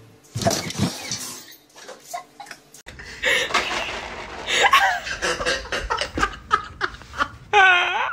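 People laughing in short, uneven bursts, with a wavering high-pitched call near the end.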